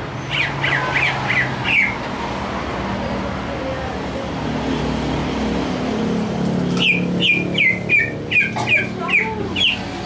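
Caged green leafbird (cucak hijau) calling in short, falling chirps: a quick run of about six, a pause of several seconds, then a longer run of about ten near the end.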